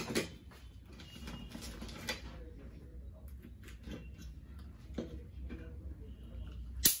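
Fork and spoon clinking and scraping against a serving dish as fried ice cream is cut into, a few soft clicks over a steady low hum, with one sharp click near the end.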